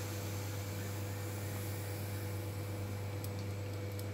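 Steady low hum under an even hiss, with a few faint clicks near the end.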